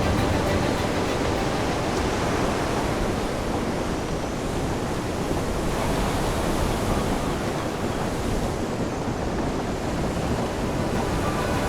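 Steady rushing sea-and-wind ambience, an even wash of noise with no distinct wave crashes.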